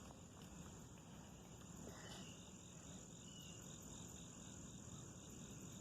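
Faint outdoor ambience: a steady high-pitched insect trill, with a few short faint chirps.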